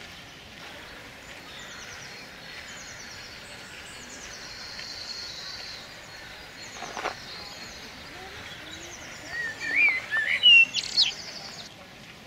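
Songbirds singing: rapid high-pitched trills and chirps repeat throughout, and one louder warbling phrase, rising and falling, comes near the end.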